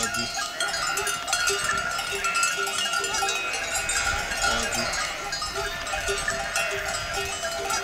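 Livestock bells on a flock of sheep and goats, ringing again and again in short clanks.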